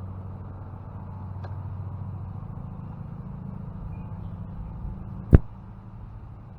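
A steady low engine hum that slowly fades, with one sharp knock about five seconds in.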